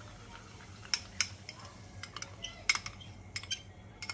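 Metal spoon clinking and scraping against a small ceramic bowl while stirring, about seven separate sharp taps at uneven intervals.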